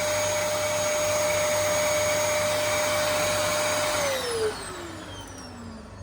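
Vacuum cleaner running steadily with a constant whine, then switched off about four seconds in, its motor pitch falling as it spins down.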